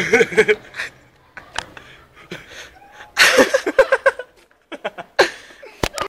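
People laughing in short bursts, with panting breaths between them; a sharp click near the end.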